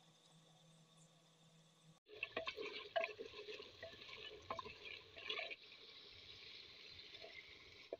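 A faint low hum, then about two seconds in mutton and masala start sizzling and bubbling in an earthenware cooking pot. A spoon clinks and scrapes against the pot as the meat is stirred, and the sizzling then goes on steadily.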